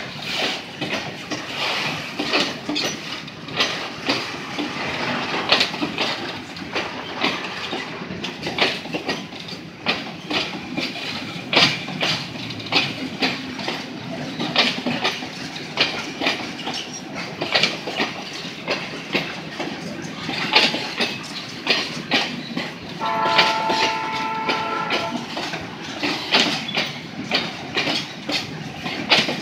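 Freight train of railway tank cars rolling past: steel wheels rumbling with irregular clacks over the rail joints. About three-quarters of the way in, a train horn sounds a chord for about two seconds.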